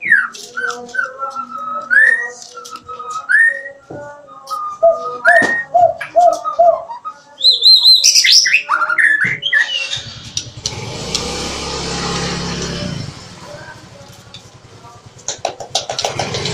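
A murai (magpie-robin) sings a series of clear whistled notes that glide and rise, followed by a high, quick trill about eight seconds in. From about ten seconds in, a steady rushing noise with a low hum runs for about three seconds and comes back near the end.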